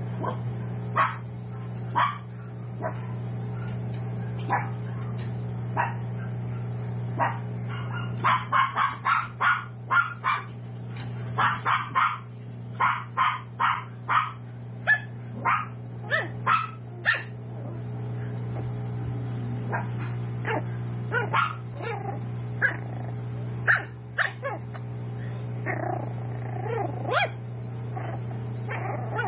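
Tiny toy poodle puppies barking in short, sharp yaps, coming in quick runs of several a second from about eight seconds in, then more scattered. A steady low hum runs underneath.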